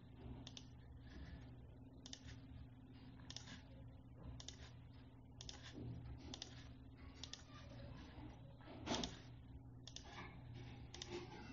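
Faint clicks from a computer mouse and keys being worked, roughly one a second, over a low steady electrical hum; one click about nine seconds in is a little louder.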